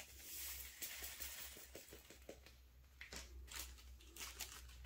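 Faint rustling and a few light clicks of small plastic zip bags of diamond painting drills being handled, over a low steady hum. The clicks come mostly in the second half.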